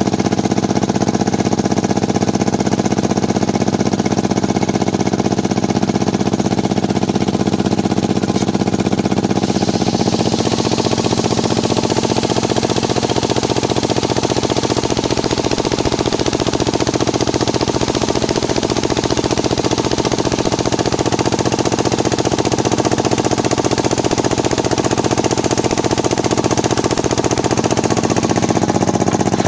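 Engine-driven circular sawmill running steadily; about ten seconds in, a harsher hiss joins over the engine as the blade cuts into waru wood, lasting until near the end.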